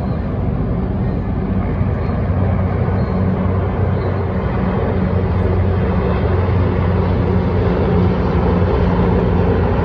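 A formation of military helicopters flying past, their rotors and turbines making a steady low drone that grows slowly louder as they approach.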